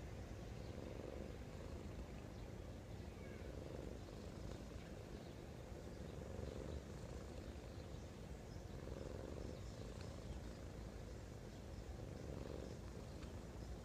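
A cat snoring close to the microphone: a soft, purr-like rumble that swells every two to three seconds with each breath.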